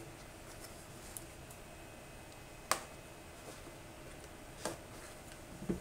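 Cardboard keyboard box being handled while it is worked open: quiet, with one sharp click a little under three seconds in and a second, softer click about two seconds later.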